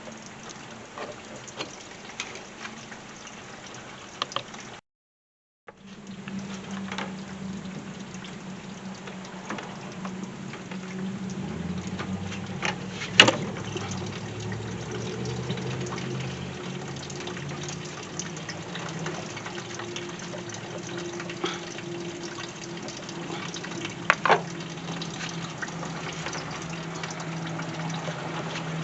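Coolant running out of the radiator into a drain pan with a steady, low, hollow gurgle. A few sharp metallic clicks of tools sit on top, the loudest about halfway through.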